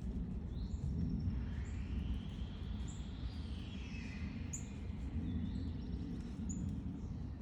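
Small backyard birds give short, high chirps about once a second over a steady low rumble of background noise.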